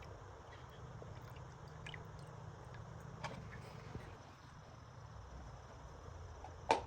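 A few light clicks and taps of hard objects being handled, with a sharper click about three seconds in and the loudest click near the end, over a low steady background hum.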